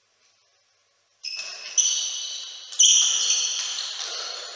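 Digital silence for just over a second, then a table tennis rally: the plastic ball struck by rackets and bouncing on the table, a few sharp hits about half a second to a second apart, each ringing on briefly.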